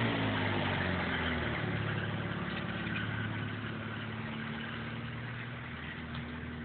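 Van engine pulling away at low speed while towing a small teardrop caravan trailer, a steady engine hum that slowly fades as it drives off.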